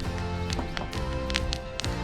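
Background music with held notes and sharp percussive clicks.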